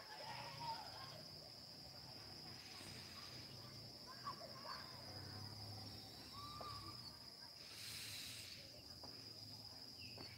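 Insects trilling steadily in one continuous high-pitched note, with a few faint chirps and a brief hiss about eight seconds in.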